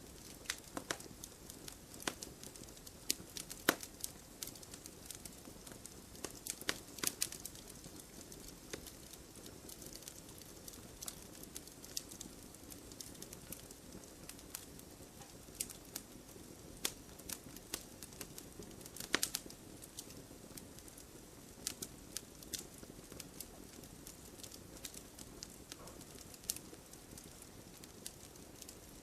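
Wood fire burning in a fireplace: logs crackling with irregular sharp pops over a steady low hiss, a couple of louder pops about 4 and 19 seconds in.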